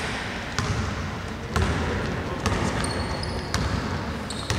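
A basketball being dribbled on a hardwood court, bouncing about once a second and echoing in a large hall. Brief high shoe squeaks come near the end.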